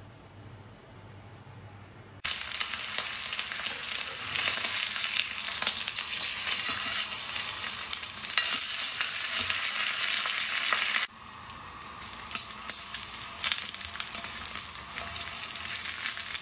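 Sous-vide-cooked steak searing in a hot pan: a loud, steady sizzle of fat and juices that starts abruptly about two seconds in. Partway through it turns quieter, with a few sharper pops, and it stops at the end.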